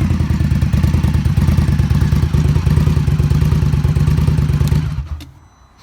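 V-twin engine idling steadily with an even pulse, then stopping about five seconds in as it is shut off.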